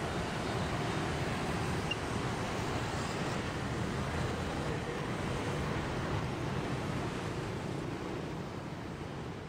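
Steady wind rumbling on the microphone, mixed with the wash of river water and distant traffic.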